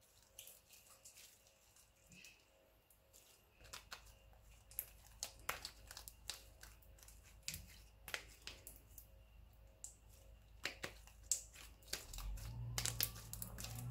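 Homemade glue slime being stretched, folded and squeezed by hand, giving faint irregular sticky clicks and little pops that come thicker from about four seconds in.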